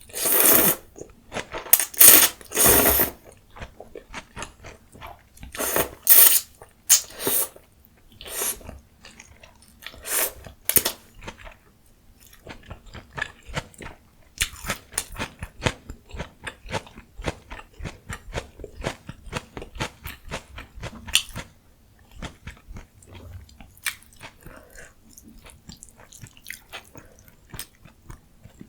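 Close-miked eating of green onion ramyun and mustard leaf kimchi: several loud bursts of eating noise in the first eleven seconds, then steady chewing with many quick, small crunchy clicks.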